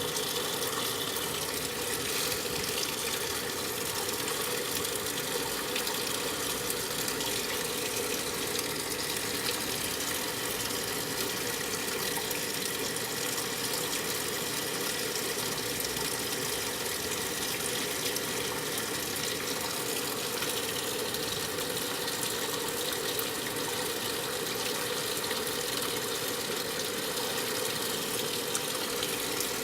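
Brastemp 9 kg washing machine filling with water, a steady rush of water pouring into the tub.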